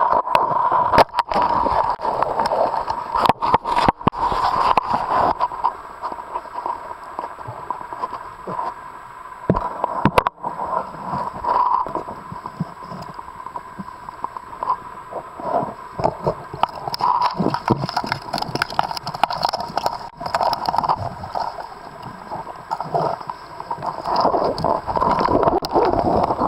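Water sloshing and gurgling against the camera, irregular throughout, with a few sharp knocks in the first half and a faint steady whine.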